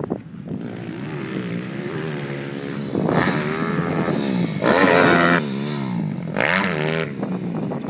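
Small minimoto pit bike engine revving up and falling back again and again under changing throttle. The loudest rises come about three, five and six and a half seconds in.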